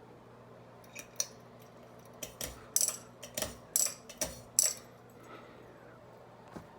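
A series of sharp metallic clicks and rattles, about eight over four seconds and one more near the end, over a faint steady hum.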